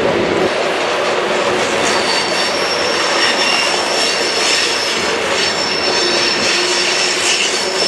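Freight cars of a BNSF manifest train rolling through a sharp curve: a steady rumble of steel wheels on rail, with high-pitched wheel squeal on the curve starting about two seconds in.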